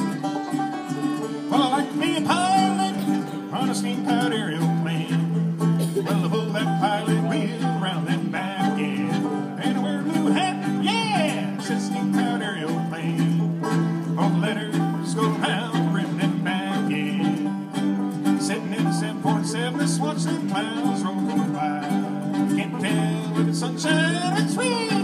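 Bluegrass string band playing an instrumental break, with banjo picking and a fiddle carrying the melody in sliding, wavering lines.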